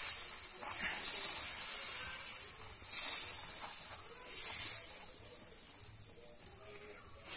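Thin roti batter sizzling as it is ladled onto a hot, oiled cast-iron griddle. The hiss swells in surges about a second, three seconds and four and a half seconds in, then dies down over the last couple of seconds.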